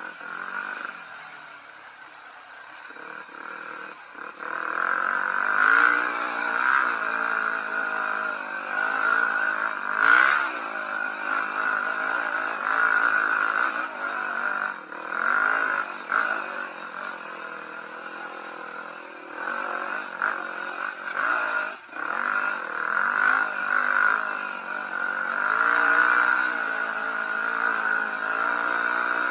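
Enduro motorcycle engine being ridden, revving up and down as the throttle is worked, with a few sharp knocks along the way.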